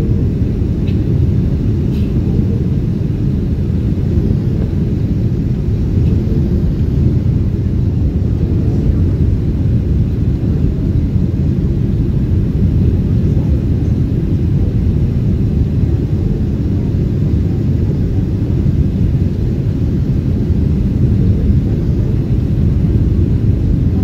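Jet airliner cabin on approach with flaps extended: a steady low rumble of engines and airflow heard from inside the cabin.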